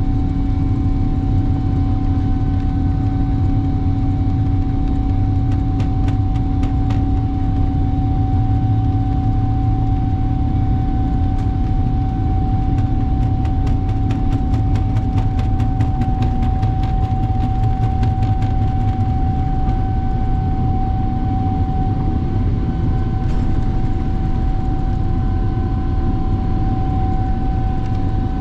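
Jet airliner cabin noise: a steady low rumble of engines and rushing air with a constant hum on top. Faint, evenly spaced ticks run for a few seconds around the middle.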